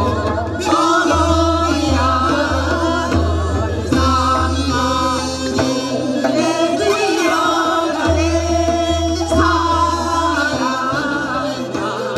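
A woman singing a Korean folk song (minyo) into an amplified microphone over instrumental accompaniment. A low bass beat runs under the song and pauses for about two seconds midway.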